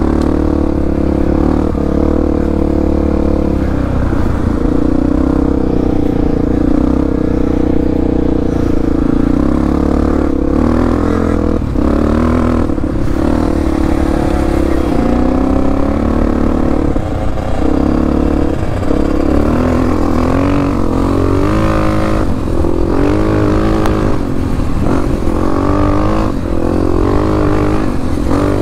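Off-road motorcycle engine running under changing throttle, its pitch rising and falling repeatedly as it revs up and eases off, with a few knocks and clatter along the way.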